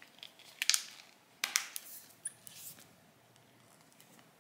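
A rubber protective case being fitted onto a OnePlus Nord CE 2 5G phone: a few short clicks, scrapes and rubbing sounds, mostly in the first three seconds.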